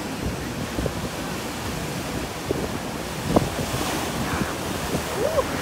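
Ocean waves breaking and washing in the surf, a steady rushing noise with wind buffeting the microphone. A brief knock stands out just past the middle.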